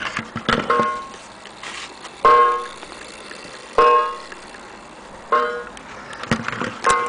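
Mantel clock striking on its coiled wire gong: one ringing stroke about every second and a half, five in a row, each fading away before the next. A few small handling clicks come near the start.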